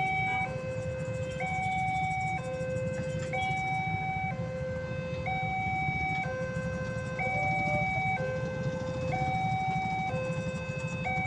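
Railway level-crossing warning siren sounding its electronic two-tone alarm, a lower and a higher note taking turns about once a second, with a brief waver in the pattern about seven seconds in. A steady low rumble runs underneath.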